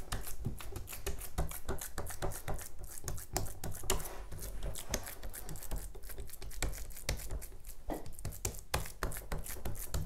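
A hand pressing and patting raw minced-meat kebab mixture firmly into an enamel tray: a run of irregular soft pats and clicks.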